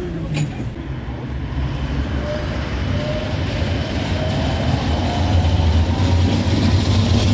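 Bucharest V3A articulated tram passing close by. Its traction motors whine upward in pitch in several steps as it gathers speed, over a low rumble of wheels on rails that grows louder.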